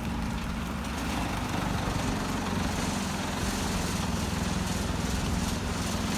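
Large industrial wood chipper running: a steady machine drone with a broad hiss above it, growing a little louder about a second and a half in.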